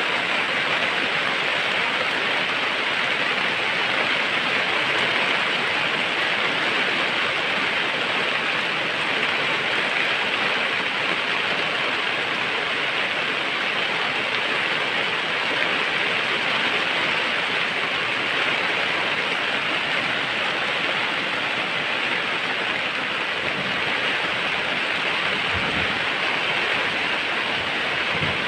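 Steady, even rushing noise like falling rain, with no speech, and a few soft low bumps near the end.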